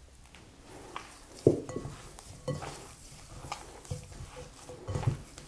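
Hands kneading shortcrust pastry dough in a glass mixing bowl: irregular soft thumps and squishes of the dough, with glass knocking and ringing briefly, the loudest knock about one and a half seconds in.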